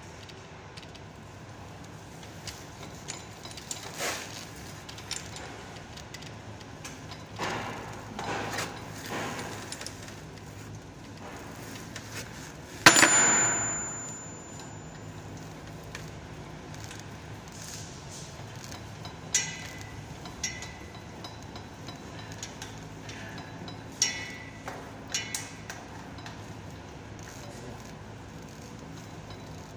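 Scattered metallic clinks, knocks and scrapes from handling a hole-cutting drill clamped onto a steel pipe, with one loud clang a little before halfway that rings on for about a second. The drill motor is not running.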